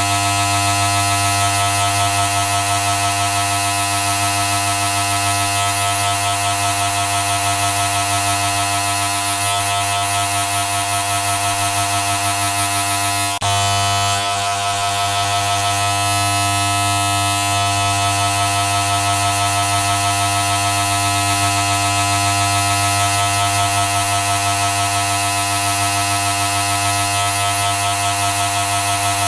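A loud, steady buzz with a low, harsh pitched hum under it, held without change apart from a brief break about 13 seconds in.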